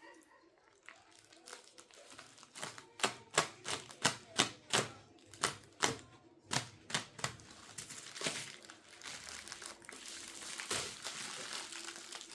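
Packaging being unwrapped by hand: crinkling of wrapping material, with a run of sharp crackling clicks, about two or three a second, through the middle.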